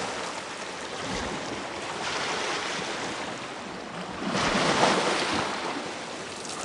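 Waves washing onto a lake shore in slow surges that swell and fade every two to three seconds, the strongest about four and a half seconds in.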